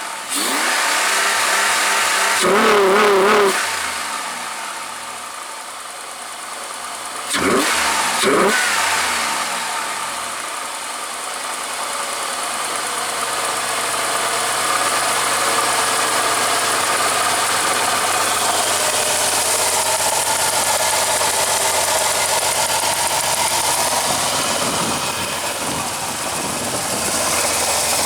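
Chrysler 3.8-litre pushrod V6 in a Dodge Grand Caravan breathing through an open, air-box-delete intake: the engine is blipped twice, a few seconds apart, then holds a steady speed, its intake sound loud throughout.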